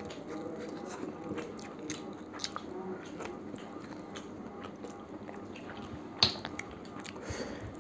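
Close eating sounds of mutton biryani eaten by hand: biting meat off the bone and chewing, with small wet mouth clicks and smacks throughout and one sharper click about six seconds in.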